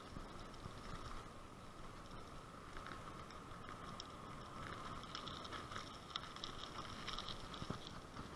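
Road bicycle rolling over a rough, patched lane: a low tyre and wind rumble with light rattles and clicks over the bumps, under a faint steady high-pitched tone.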